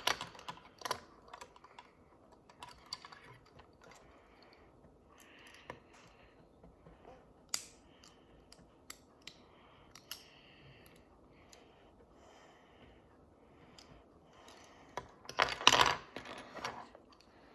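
Small plastic toy pieces being handled and fitted together: scattered light clicks and taps, with a louder clatter of plastic near the end.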